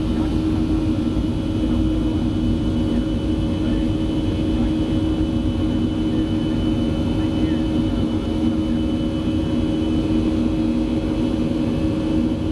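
Boeing 737's turbofan engines running at climb power, heard inside the cabin: a steady rumble with several constant droning tones.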